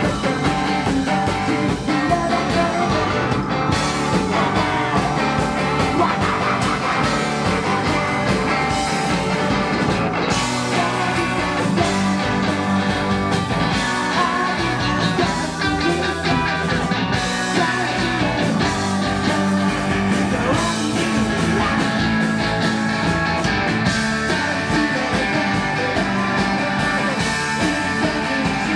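Live rock band playing loudly: electric guitar, keyboard and drums, with a male vocalist singing into the microphone.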